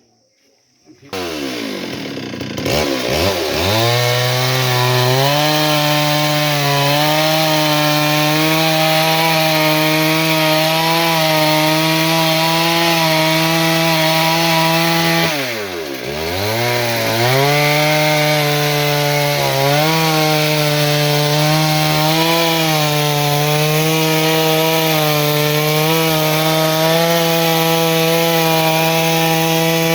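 Two-stroke chainsaw engine starting up about a second in and rising to a steady high-speed run. About halfway through, the speed drops sharply for a moment and then climbs back.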